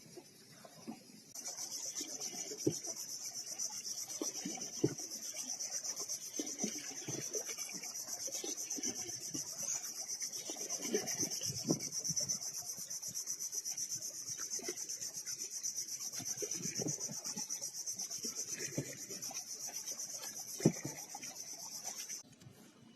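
Insect buzzing: a steady, fast-pulsing high-pitched buzz that starts about a second in and stops abruptly near the end. Scattered faint low knocks lie beneath it.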